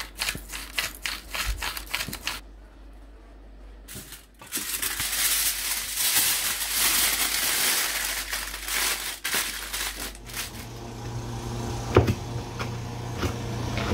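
Aluminium foil crinkling and rustling as it is folded into a parcel around buttered crayfish tail, from about four and a half seconds in. Before it, a quick run of short clicks; near the end, a low steady hum with knife knocks on a cutting board.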